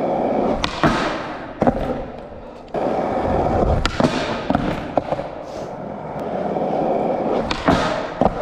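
Skateboard wheels rolling, with sharp clacks of the board popping and hitting down several times. The rolling fades about two seconds in and starts again abruptly a little later, as the board comes back down.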